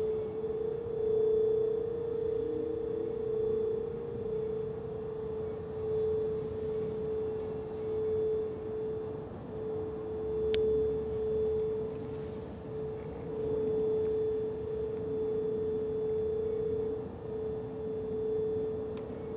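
Federal Signal SD-10 rotating siren holding a steady alert tone, swelling and fading in loudness about every two seconds as it rotates. Fainter sirens of neighbouring systems wind up beneath it early on and again near the middle.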